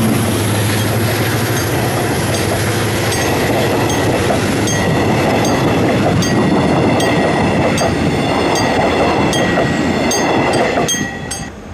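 Diesel-hauled passenger train passing at close range. The locomotive's engine is heard at first, then the coaches' wheels rumble and click over the track. The noise drops off suddenly about eleven seconds in as the last coach clears.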